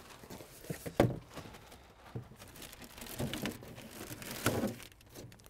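Packaging being handled inside a wooden crate: plastic wrapping rustling and crinkling, with a few sharp knocks, the loudest about a second in.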